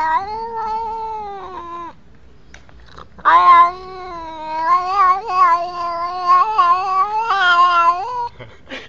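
Black-and-white domestic cat giving long, drawn-out meows. The first lasts about two seconds. After a short pause comes one of about five seconds that wavers up and down in pitch, and another starts right at the end.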